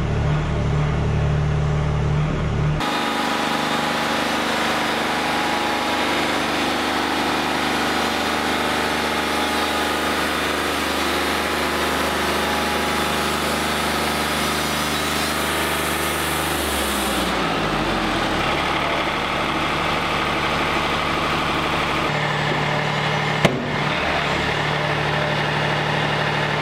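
Wood-Mizer LT40 hydraulic portable band sawmill running, its engine steady as the sawhead works a log into a squared beam. The sound shifts abruptly a couple of times, a falling tone comes a little past the middle, and a single sharp click comes near the end.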